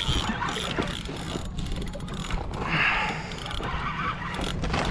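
Fishing reel clicking in irregular ticks as a hooked shark is wound in, over a steady low rumble.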